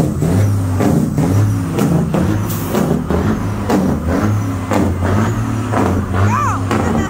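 Semi truck's diesel engine running loud as the tractor and its trailer pass close by.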